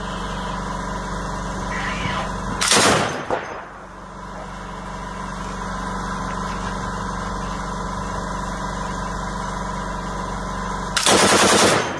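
Machine gun firing two bursts, a short one about three seconds in and a longer rapid one of about a second near the end, over a steady low drone.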